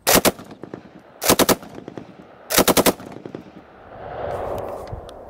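Colt Monitor (R80), a .30-06 Browning Automatic Rifle with a Cutts Compensator muzzle brake, firing three short fully automatic bursts of a few shots each, a bit over a second apart.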